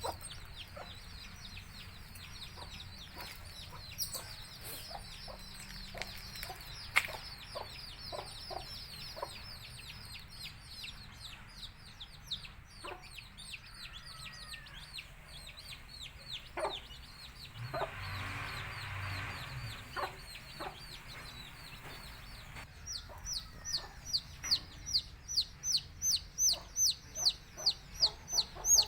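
Baby chicks of a country hen peeping constantly with high, falling cheeps while the hen clucks in short notes; there is a brief scratchy rustle midway. Near the end one chick peeps loudly and rapidly, about three cheeps a second.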